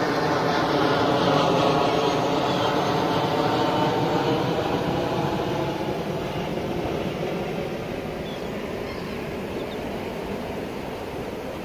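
Jet aircraft passing over and receding, its engine noise slowly fading away.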